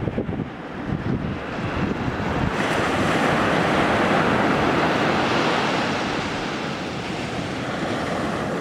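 Sea surf: a wave surges in about two and a half seconds in, peaks, then slowly washes away. Low wind buffets the microphone underneath.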